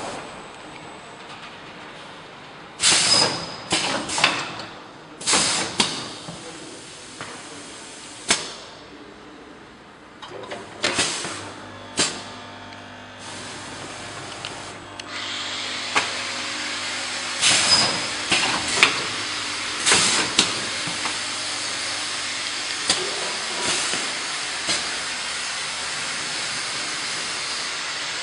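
ZV-720 vertical powder packing machine running: a series of short, sharp hisses of released compressed air from its pneumatic actuators, irregularly spaced, over a steady hiss that gets louder about halfway through.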